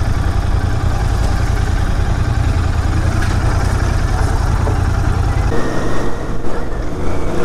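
Royal Enfield Continental GT 650 motorcycle running as it is ridden, a steady low rumble that drops away sharply about five and a half seconds in.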